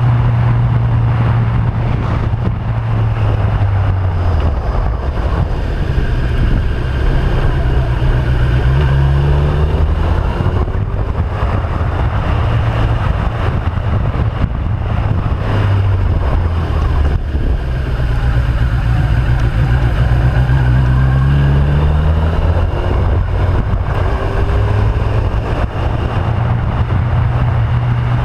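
Motorcycle engine running under load with wind rushing over the microphone; the engine note drops twice and climbs twice as the bike slows for bends and accelerates out of them.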